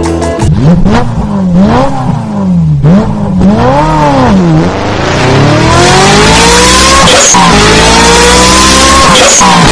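Motorcycle engine sound: revved up and down several times, then accelerating hard with the pitch climbing through the gears, dropping at a shift about seven seconds in and again near the end.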